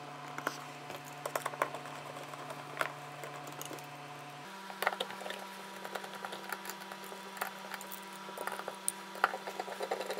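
Small clicks, taps and ticks of 3D-printed plastic parts and a hand tool as the fan of a model turbofan is fitted onto its shaft and fastened, over a faint steady hum that changes pitch about four and a half seconds in.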